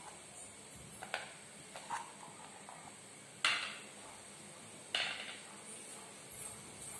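Kitchen handling noise at a frying pan: a few light clicks, then two sharp clattering knocks about three and a half and five seconds in, as cashew nuts are tipped from a plate into ghee in a nonstick kadai and the plate is set down on the counter.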